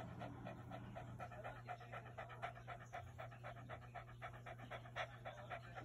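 Boston Terrier panting hard with her tongue out: rapid, even breaths, several a second, kept up without a break.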